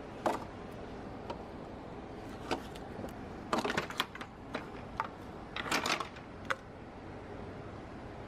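Rubber upper radiator hose being twisted and worked off its outlet by gloved hands: irregular short scrapes and clicks, coming in clusters through the middle, over a steady background hiss.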